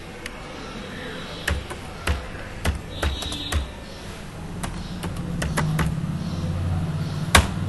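Computer keyboard keystrokes: single clicks about half a second apart, then a quicker run of keys, and one louder click near the end.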